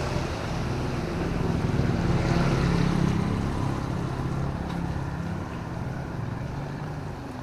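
A motor vehicle passing along a wet city road: a low engine rumble and tyre hiss that swells to its loudest about two to three seconds in, then fades away, over the steady hiss of drizzle.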